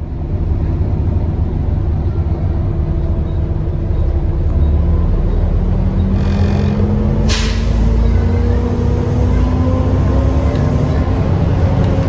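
Diesel engine of a First Worcester single-deck bus heard from inside the saloon, running under load with a low rumble and a whine that rises slowly as the bus gathers speed. A short hiss comes about six seconds in, then a sharper burst of air hiss at about seven seconds that fades away. The uploader finds the bus sounds quite tired.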